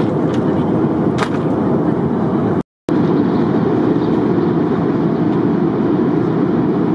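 Steady rushing cabin noise of a jet airliner in flight, broken once by a brief silence a little under three seconds in.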